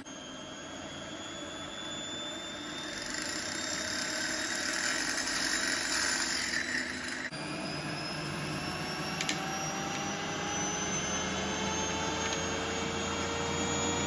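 Motor-driven neodymium magnet rig spinning around a copper pipe: a steady mechanical whine whose faint tones rise slowly in pitch, with a short break about seven seconds in.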